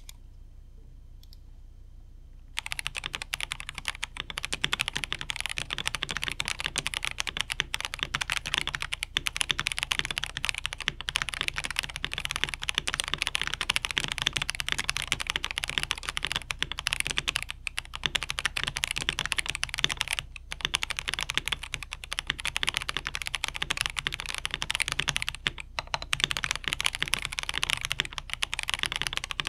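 Fast, continuous typing on an Epomaker HE80 75% Hall effect keyboard fitted with Epomaker's own switches and full internal dampening, the keystrokes forming a dense stream of clacks that starts about two and a half seconds in, broken by a few brief pauses.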